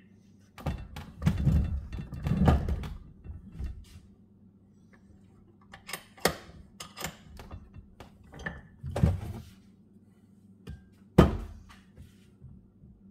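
Metal clanks and knocks as the steel deck height lift lever of a Murray riding mower is worked in a bench vise to bend it back. A rough, busy stretch of knocking comes in the first few seconds, then scattered single knocks, the loudest near the end.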